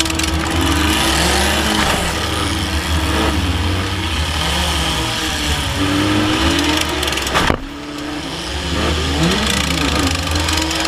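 Demolition derby car engine revving up and down, heard from inside the stripped car. One loud bang about seven and a half seconds in.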